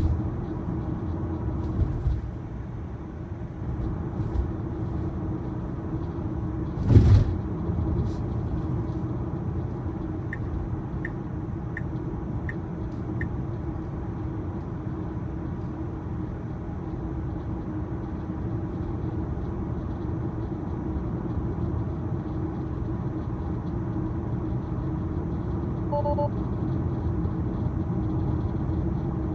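Steady road and tyre noise inside the cabin of a 2023 Tesla Model Y driving along, a low rumble with a steady hum. A single thump about seven seconds in, a run of five short high pips a few seconds later, and a brief electronic tone near the end.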